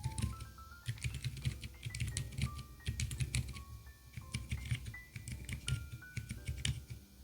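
Steady typing on a mechanical keyboard fitted with Outemu switches: a dense, irregular run of keystroke clacks, several a second.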